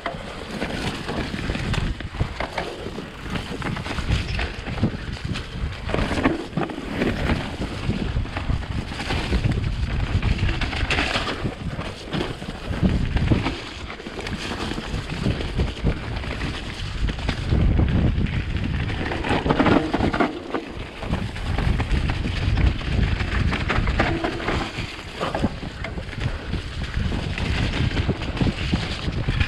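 Specialized Enduro Comp mountain bike on a wet, muddy trail descent: steady wind on the microphone over the tyres rolling through mud, with irregular knocks and rattles from the bike.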